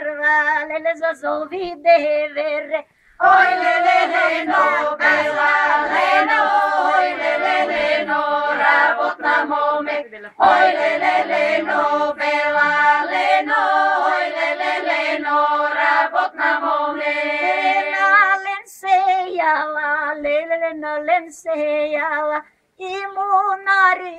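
Group of Bulgarian village women singing a traditional courtship and wedding folk song a cappella, in phrases of several seconds with short breaks between them.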